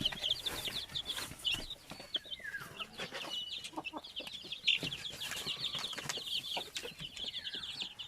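A brood of young chicks peeping continuously, many short high chirps overlapping, with scattered small clicks and rustles.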